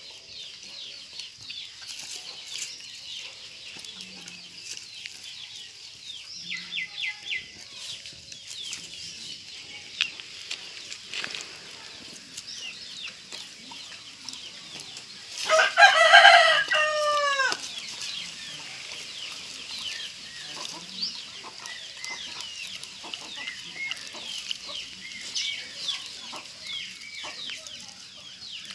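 A rooster crows once, loudly, about halfway through: a single call of about two seconds whose pitch falls away at the end. Under it runs a constant high chirping of birds.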